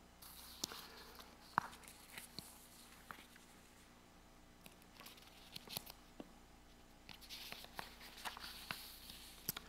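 Faint rustling of paper sheets being shuffled and turned on a wooden lectern, with scattered small clicks and taps, the sharpest about one and a half seconds in.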